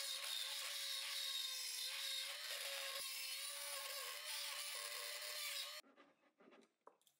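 Small cordless rotary tool running, its bit grinding out the slotted holes of a 4 mm thick metal bracket to enlarge them: a steady whine over a grinding hiss. It stops abruptly about six seconds in, leaving near silence with a few faint ticks.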